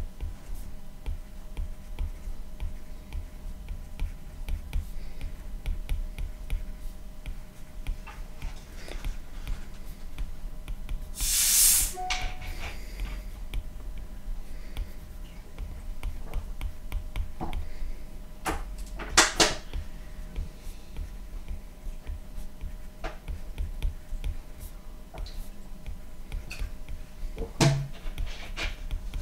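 Stylus tapping and scratching on a tablet's glass screen during handwriting: a run of faint, irregular ticks over a low steady hum. A short, louder hissing noise comes about eleven seconds in, and a few sharper clicks come a little later.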